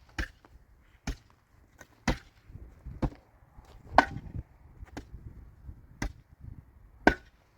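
Chopping blows struck at a steady pace of about one a second, seven sharp strikes with one beat skipped midway.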